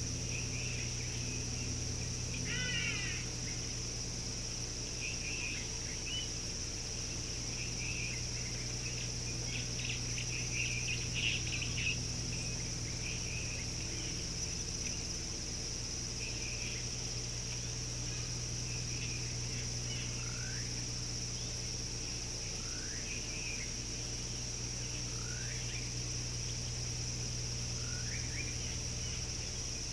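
Outdoor ambience: a steady high-pitched insect chorus with scattered bird chirps, including four short rising calls in the second half, over a low steady hum.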